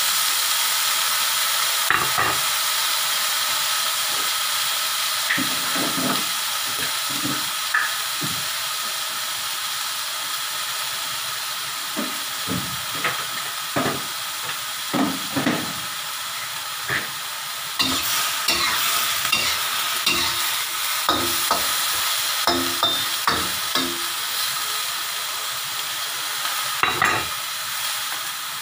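Vegetables sizzling in a hot wok over a gas flame, a steady frying hiss that eases slowly. A metal spatula scrapes and knocks against the pan now and then as the broccoli is stir-fried.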